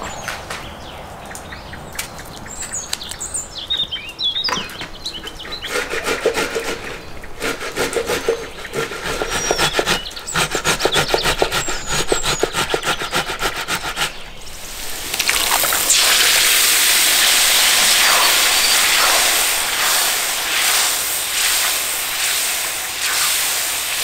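Ripe tomatoes rasped on a metal box grater into a plastic bowl, a quick steady run of scraping strokes with birds chirping over them. About two-thirds of the way through, this gives way to a steady sizzling hiss of grated tomato frying in a cast-iron pot.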